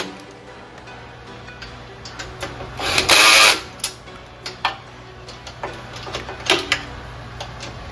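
Tools working on metal bolts: scattered clicks and knocks, with one short, loud, harsh burst about three seconds in, over a steady low hum.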